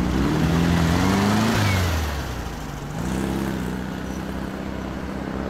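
Air-cooled flat-four engine of a lowered classic Volkswagen Beetle driving by, with road noise. The engine note rises over the first second or so, drops about two seconds in, then runs steadier.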